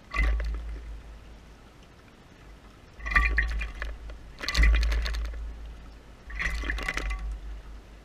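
A brown thrasher bathing in a bird bath, splashing the water in four short bouts of about a second each, close to the microphone.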